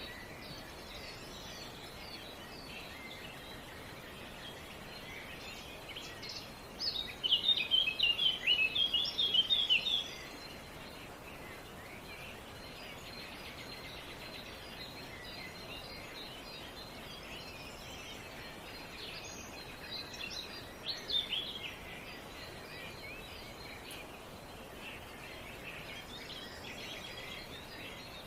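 Wild songbirds chirping and twittering over a steady outdoor hiss, with a loud burst of rapid, high chirps about a quarter of the way in and a shorter burst past two-thirds of the way.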